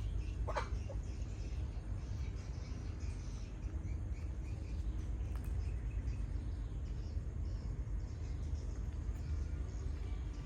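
Chickens calling and chirping, with one louder call about half a second in, over a steady low rumble.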